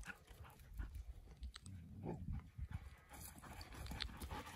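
Dogs faintly heard on the run: scattered light, short sounds and one brief low sound about two seconds in.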